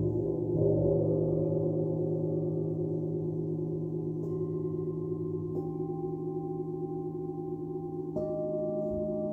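Hanging gong struck with a felt mallet, ringing on with a dense low hum of overlapping tones. Struck metal chime bars add new clear ringing tones about four, five and a half and eight seconds in.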